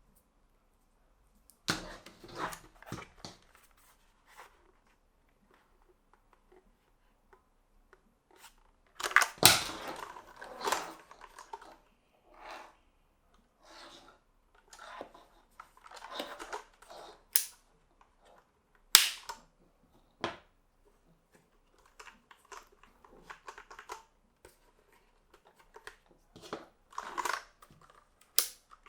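Keyboard box and packaging being handled: scattered sharp clicks and knocks with short rustles, irregular rather than a typing rhythm. The loudest knocks come about nine and nineteen seconds in.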